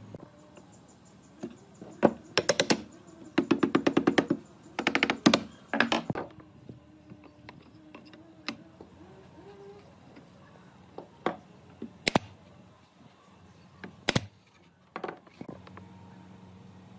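Work on solid wood: four bursts of rapid knocking, each lasting about half a second to a second, then single sharp knocks several seconds apart.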